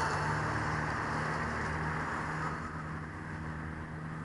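Small 7mm brushed motors of a micro foam airplane whining in flight, a steady hiss that slowly fades as it moves away.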